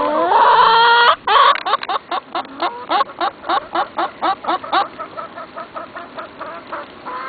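Backyard hens complaining: one long, rising, drawn-out squawk, then a rapid run of clucks, about four a second, that trails off after about five seconds, with one more call near the end.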